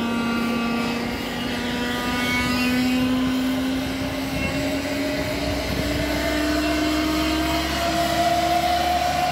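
Boeing 737 cargo jet's turbine whine rising slowly and steadily in pitch as the aircraft starts powering up, with a low rumble joining about halfway.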